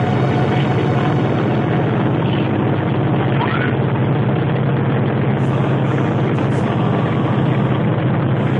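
Steady, loud engine drone inside the cabin of an old Soviet-built aircraft in flight.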